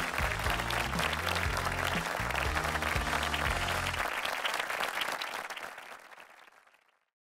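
Studio audience applauding over the show's theme music, which has a steady bass line. The music stops about four seconds in, and the applause fades out near the end.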